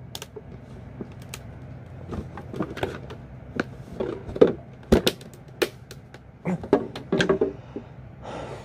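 Screwdriver being twisted and levered in a hard plastic anti-theft retail box: irregular clicks, knocks and creaks of the plastic, with a louder knock about five seconds in.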